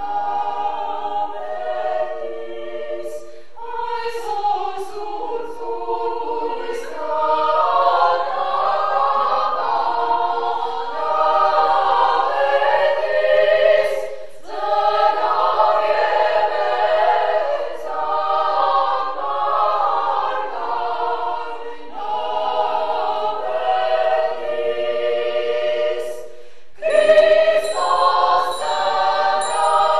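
Women's choir singing a cappella, several voices together in long sustained phrases, with three brief pauses between phrases.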